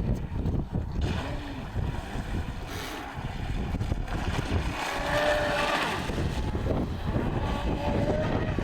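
Small motor of a remote-controlled boat running on the water, its thin whine loudest about five seconds in and heard again briefly near the end, over wind buffeting the microphone.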